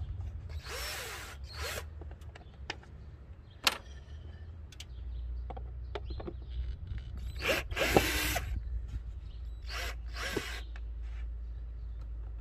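A cordless drill run in several short trigger bursts, its motor spinning up and back down each time, backing out long screws from a car's air filter box lid. A sharp click comes a little after the first bursts, and a steady low hum sets in about halfway through.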